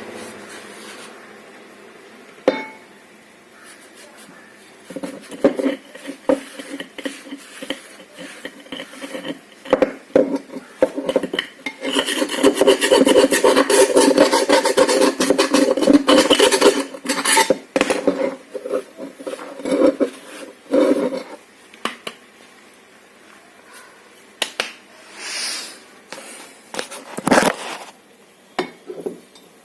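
Metal objects clinking and clattering as they are handled. A single sharp click comes first, then scattered clinks, then a dense stretch of clatter in the middle, and sparser knocks toward the end.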